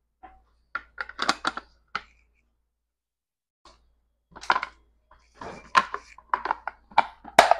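Sharp clicks and clatter of a car smart key module's hard plastic housing being handled and fitted together around its circuit board. There is a short cluster of clicks about a second in, then a denser run of clicks from about four and a half seconds on.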